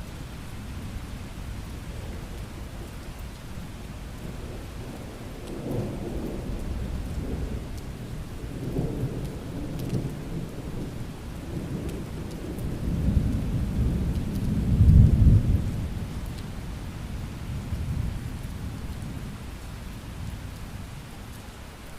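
Steady rain with a long roll of thunder: the rumble begins about five seconds in, swells several times, is loudest about fifteen seconds in, and dies away near the end.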